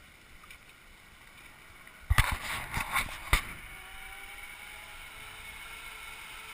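Metal clanks of a zip-line trolley and carabiners on the cable about two seconds in as a rider launches, then the trolley's pulley running steadily along the cable with a faint whir.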